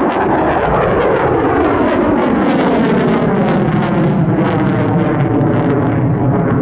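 F-35A fighter jet's single F135 turbofan in afterburner, a loud steady jet noise with a crackling edge as the jet climbs straight up, with a slow falling, phasing sweep through the noise.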